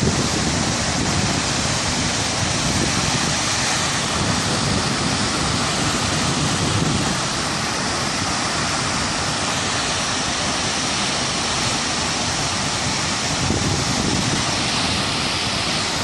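Large waterfall in spate, heavy muddy water plunging into a pool below: a loud, steady rush of falling water.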